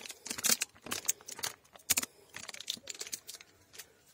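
Footsteps crunching and scuffing on a gritty concrete path: a string of irregular sharp clicks.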